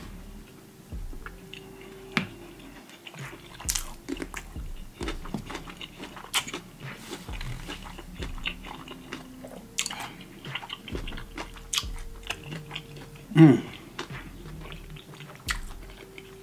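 Close-miked chewing and mouth smacking: a person eating with irregular wet clicks and crunches. A brief hummed vocal sound about thirteen seconds in is the loudest moment.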